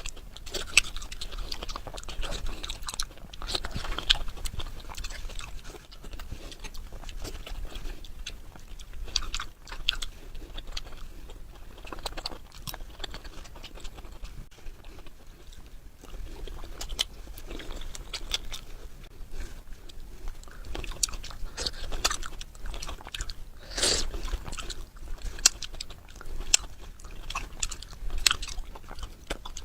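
Close-miked eating: chewing and biting, with many irregular sharp crackling clicks throughout. The loudest bite comes about 24 seconds in.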